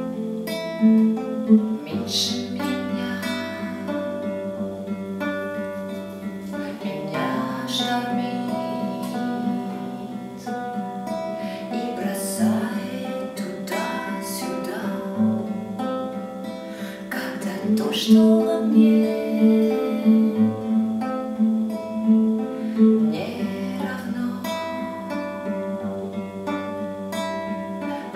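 Music: plucked guitar-like strings over sustained low notes.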